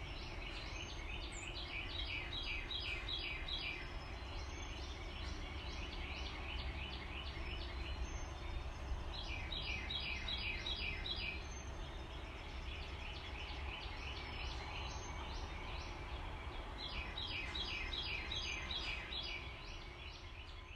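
Steady rush of water pouring over a low dam spillway onto rocks. Over it, a songbird sings a rapid run of repeated notes three times, several seconds apart.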